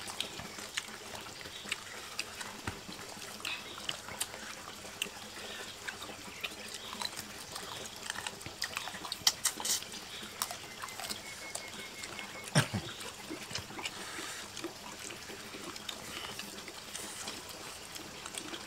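People eating with their hands: scattered wet chewing and lip-smacking clicks over a steady hiss.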